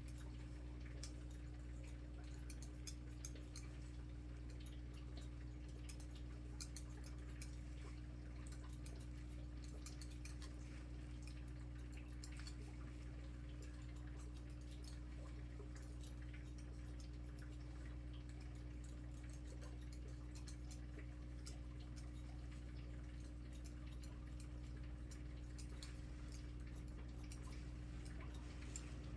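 Barber's scissors snipping hair in many quick, light clicks over a steady low electric hum.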